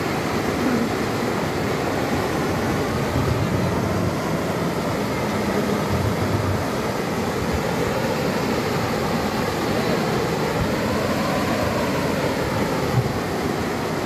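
Steady rushing of a small waterfall pouring over rock into a pool, an even noise with no breaks.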